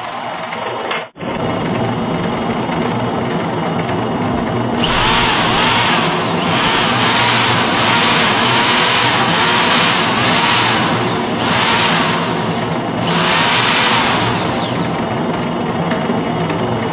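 Red cordless drill running free in about four spurts, each with a falling whine as it winds down on release, over a steady low motor hum.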